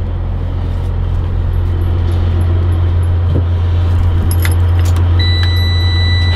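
A diesel truck engine idling with a steady low drone, while the garbage truck's ignition key clicks over about four seconds in and a steady electronic warning buzzer comes on about a second later, just before the starter is pressed.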